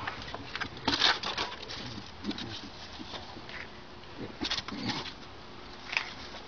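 Light footsteps, scuffs and taps on a tiled patio, with louder rustling bursts about a second in, around four and a half seconds in and once near the end.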